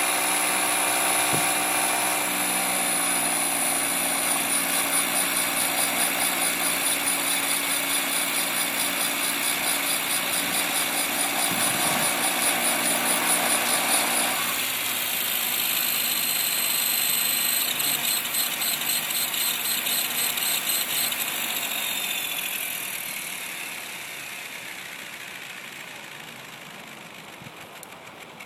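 Align T-Rex 500 ESP electric RC helicopter running, a steady motor whine and rotor buzz with a rattling vibration that the owner suspects comes from the tail or the ESC. About two thirds of the way through the whine drops in pitch and the sound fades as the rotor winds down.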